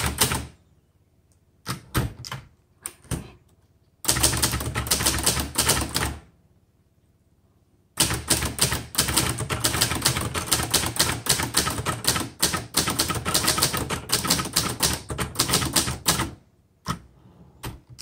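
1969 Hermes 3000 manual portable typewriter being typed on: type bars striking the platen in quick runs of keystrokes. The runs are broken by pauses of a second or two, with one long unbroken run in the second half.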